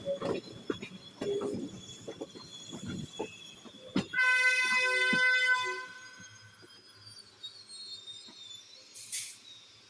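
A train horn sounds once, a single steady note about a second and a half long, about four seconds in, right after a sharp knock. Around it are the scattered clicks and low rumble of a moving train.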